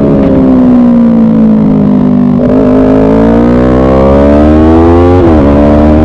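Motorcycle engine at track speed with wind rushing over the onboard microphone: the engine note falls while braking for a corner, then rises steadily under acceleration, with a quick upshift about five seconds in where the pitch drops and climbs again.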